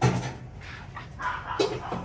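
A dog barking, loudest at the start and again near the end.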